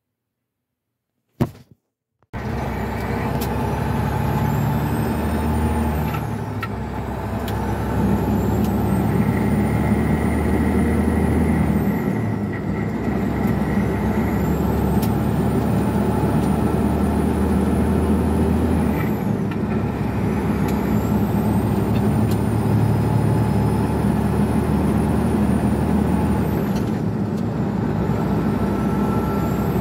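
Diesel engine of an old International semi truck heard inside the cab, pulling steadily on the highway, starting a couple of seconds in. A high whine climbs with the revs and drops back about every six to seven seconds as the driver shifts up through the gears.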